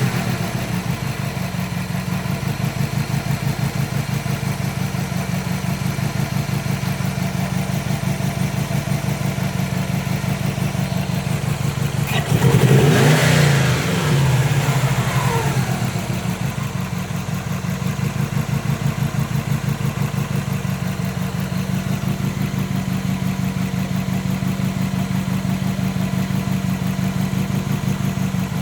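2005 Subaru WRX's EJ20 flat-four engine idling with a misfire on cylinder 3, which the owner ties to a P0340 camshaft position code. Midway it is revved once briefly, the pitch rising and falling, then it settles back to idle.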